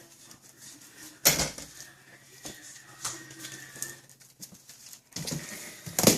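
A sharp knock about a second in, light scattered taps, then a short scuffling clatter near the end that ends in another sharp knock.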